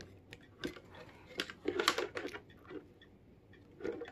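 Light handling noise: scattered small clicks and rustles as wires are pushed into a clear plastic jar by hand.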